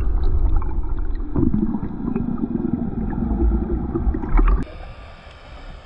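Underwater sound from a camera in its housing as a free diver swims: a loud muffled rumble and gurgle of moving water with scattered small clicks. About four and a half seconds in it drops abruptly to a quieter hiss.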